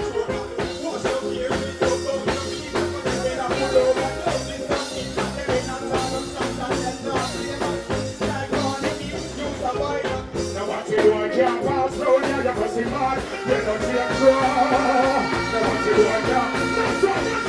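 Live reggae/dancehall music with a steady beat, and a performer singing over it into a microphone; held instrument tones come in near the end.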